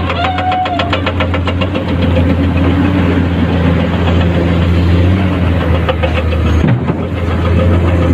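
Komatsu PC210-10 excavator's diesel engine running steadily with a rapid, even ticking. It grows louder about two seconds in as the machine works.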